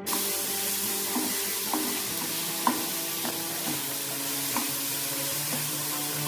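Chicken pieces frying in hot oil in a pan: a steady sizzle, with a few light clicks of a spatula stirring.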